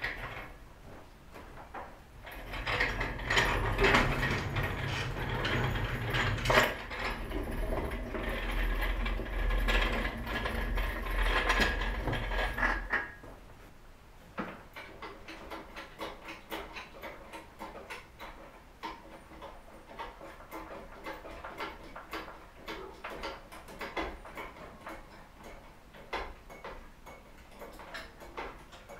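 Mercedes OM617 diesel engine on a wheeled engine stand rolled across the shop floor: about ten seconds of loud rumbling and rattling from the casters and the stand. After that, quieter rapid clicking of a ratchet wrench as work on the engine begins.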